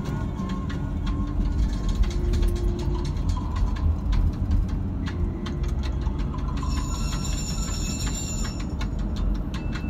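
Steady low rumble of road and engine noise heard inside a moving car, with faint music underneath.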